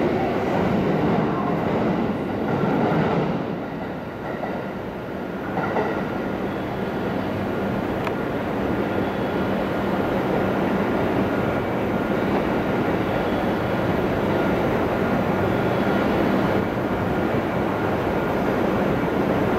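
JR West 681- and 683-series electric express train running on the rails: a continuous rumble of wheels and running gear, dipping briefly about four seconds in, with a low steady hum joining soon after.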